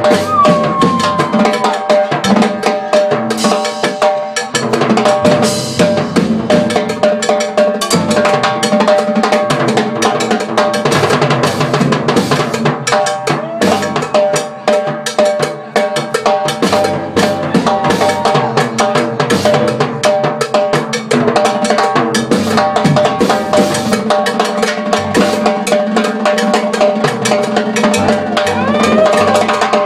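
Live band playing a fast, percussion-heavy groove: hand drums (congas), timbales and cowbell struck rapidly over a drum kit, with sustained notes from bass and horn underneath, continuous throughout.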